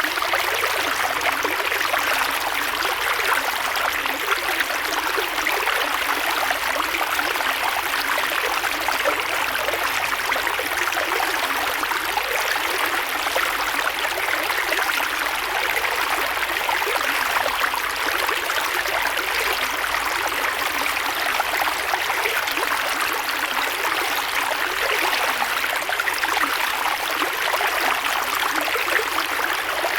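Creek water flowing steadily over rocks, a continuous rushing with fine trickling and splashing detail.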